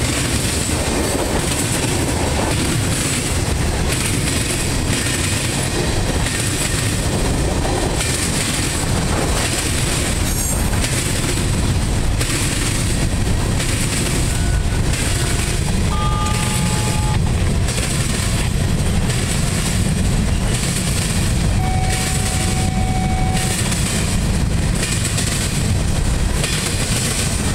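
Freight cars of a long mixed freight train rolling past close by: a steady rumble and clatter of steel wheels on the rails.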